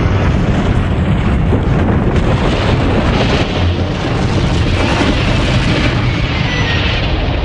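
Cartoon sound effect of a building collapsing: a loud, steady rumble.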